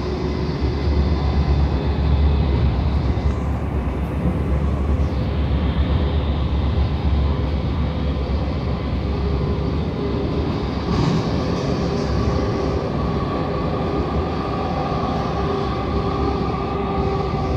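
Sacramento light rail train running at speed, heard from inside the car: a steady rumble of wheels on the rails with a constant hum. A steady whine comes in around the middle.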